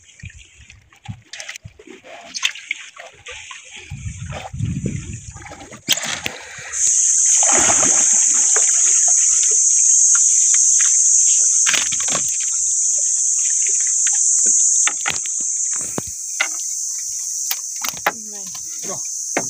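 Water splashing and dripping with scattered knocks as a fishing net is hauled in by hand. About seven seconds in, a loud, steady high-pitched buzz sets in and stays on top.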